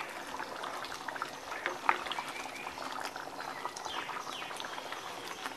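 Thick chickpea curry gravy bubbling as it simmers in a pan, stirred with a ladle, with many small pops and one sharper tap about two seconds in.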